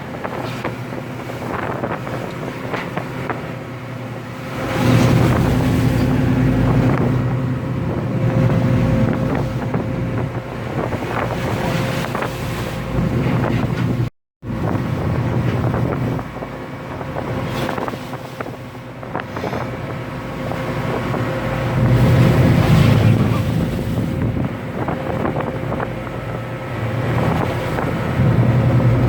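A ship's engine running at sea with a steady low hum, under wind buffeting the microphone. The hum swells about five seconds in and again past twenty seconds, and the audio drops out for an instant midway.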